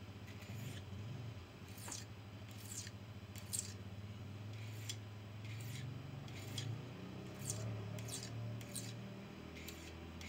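Fillet knife blade drawn along a handheld whetstone to sharpen it: short scraping strokes, about one a second, some in quick pairs.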